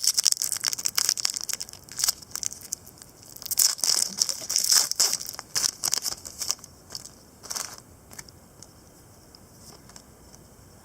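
Foil trading card pack wrapper and cards being handled: crinkling, crackling and tearing, busiest in the first half and dying away after about eight seconds.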